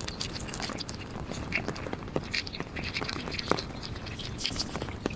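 Heavy rain on a car, with irregular drop taps over a steady hiss.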